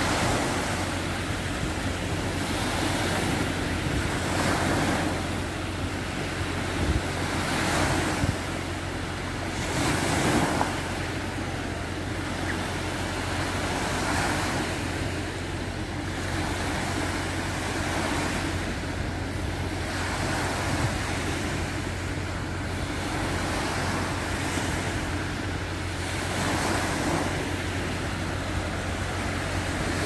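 Small waves breaking and washing up a sandy beach, the surf swelling every few seconds, with wind rumbling on the microphone.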